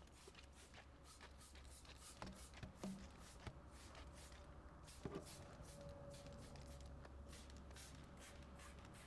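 Faint, quick squirts of a trigger spray bottle, about three a second, spraying engine cleaner over a steady low hum.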